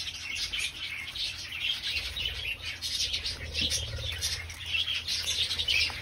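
Budgerigar chirping: a steady run of short, high chirps.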